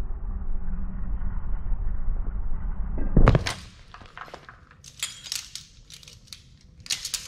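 Low rumbling noise for about three seconds, ending in a single loud thump. Then scattered metallic clicks and clinks of carabiners and a rope-climbing device being handled at the harness.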